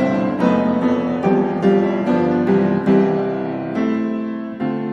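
Background piano music, single notes and chords struck at an even pace of a little over two a second, each note fading after it is struck.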